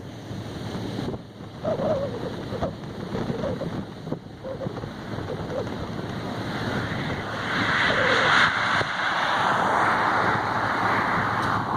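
Wind buffeting the microphone, with a louder rushing hiss that builds from about halfway through and drops away near the end.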